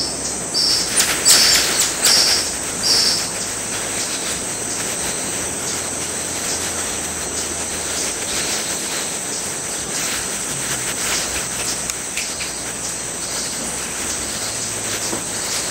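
Tamarins chirping: about five short, high-pitched chirps in the first three seconds, with fainter ones later, over a steady high drone of insects.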